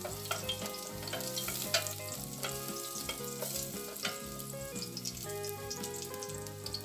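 Garlic sizzling in hot oil in a stainless steel pot, stirred with a wooden spatula that clicks and taps against the pot now and then. Soft background music plays underneath.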